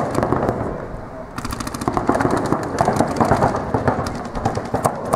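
Paintball markers firing rapid strings of shots, a fast crackle of many overlapping shots. The crackle thins briefly about a second in and builds again toward the end.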